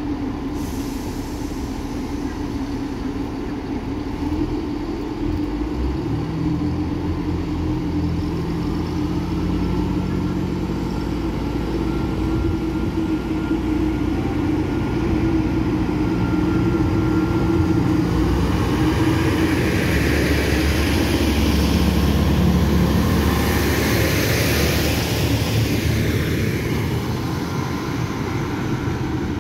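Diesel engines of a Class 158 diesel multiple unit running steadily, then pulling away with more engine note from about six seconds in. A louder rushing noise and a faint rising whine build in the second half as the train gets under way.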